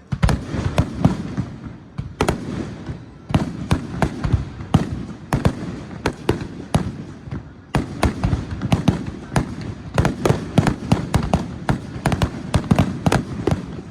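Aerial fireworks bursting in a rapid barrage: many sharp bangs, several a second, each with a rumbling echo. A short lull just past halfway, then the bangs come even thicker.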